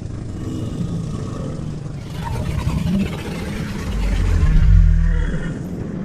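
Deep, rumbling dinosaur roar sound effect: one long drawn-out growl that swells to its loudest about four to five seconds in.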